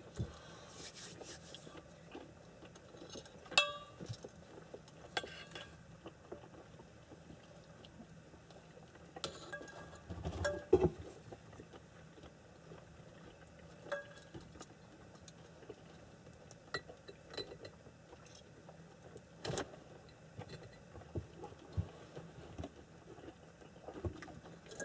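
Scattered clinks and light knocks of dishes and cutlery on a table during a meal, the loudest a short ringing clink about three and a half seconds in.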